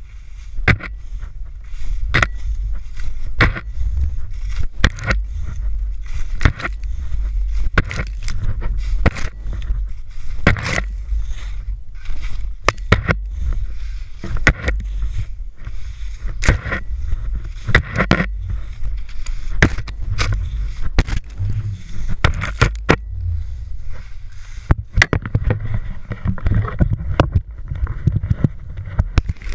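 Wind buffeting a GoPro at the end of a ski pole during a ski run, with frequent sharp knocks and scrapes as the pole is planted and jostled in the snow. Near the end a hiss of skis and spraying snow grows louder.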